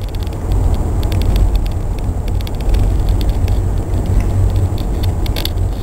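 Steady low rumble of road and engine noise from a moving car, with scattered light ticks and rattles.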